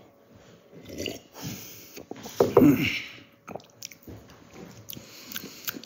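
A man sipping and swallowing coffee from a mug, with wet mouth noises. About two and a half seconds in comes a short falling vocal sound, then faint clicks.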